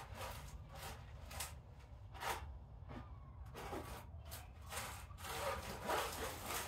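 Kittens at play: irregular scuffling, rustling and scratching noises, with the busiest patch near the end.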